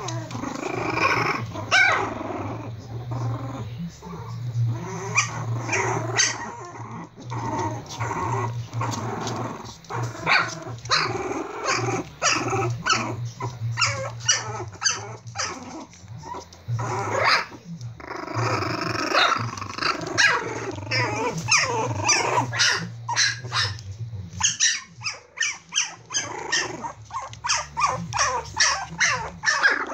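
Prague Ratter puppies growling and yipping at play while tussling, with many quick clicks of claws scrabbling on a hard laminate floor.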